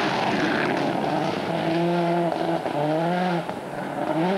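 Rally car engine at full throttle passing at speed, over a wash of tyre and road noise. The engine note holds, then rises in pitch and breaks off a couple of times, as at gear changes.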